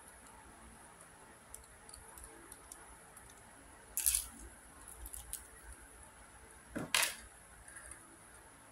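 Handling noise from a small plastic Ivy Cube puzzle keychain: faint clicks, a short metallic jingle of its keychain chain about four seconds in, and a louder clack about seven seconds in.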